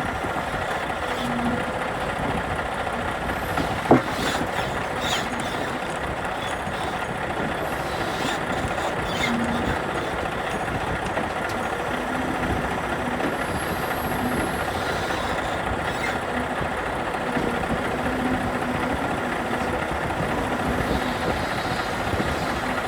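Heavy truck driving with a steady run of engine and road noise, and one sharp click about four seconds in.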